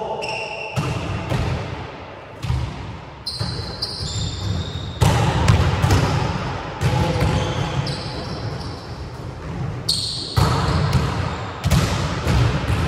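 Volleyballs being struck and bouncing on a wooden gym floor, a string of separate thuds that echo in the hall. Short high squeaks of sneakers on the floor come in between.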